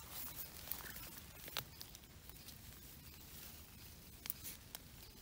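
Soft rustling of wet grass and leaf litter close to the microphone: a steady faint hiss with scattered light ticks, a few of them sharper.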